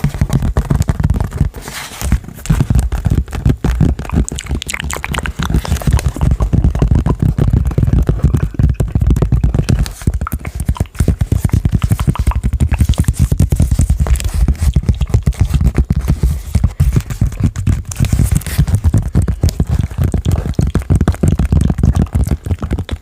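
ASMR sounds on a small board: a dense, continuous stream of rapid taps and scrapes, heavy in the low end.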